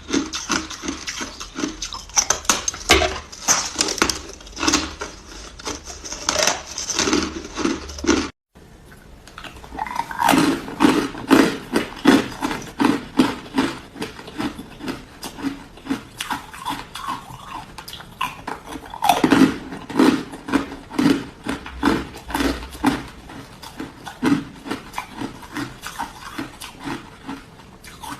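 Close-up crunching of hard ice being bitten and chewed, a rapid run of sharp cracks and grinding crunches several times a second. The crunching stops dead for a moment about eight seconds in, then carries on.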